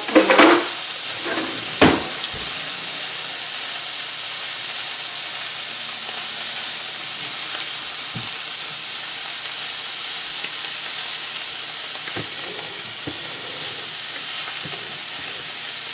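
Wagyu steak searing in a hot oiled pan, a steady loud sizzle as its crust is seared again. A few sharp knocks in the first two seconds and a couple of fainter ones near the end.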